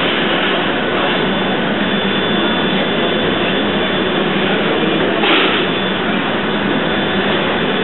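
The Stadt Rapperswil paddle steamer's steam engine running: a steady, loud mechanical noise. A brief louder rush comes about five seconds in.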